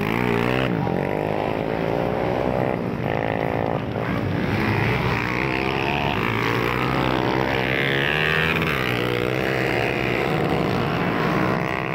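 Motocross dirt bike engines revving up and down as the bikes race over the jumps and through a turn, more than one engine at a time, their pitch rising and falling.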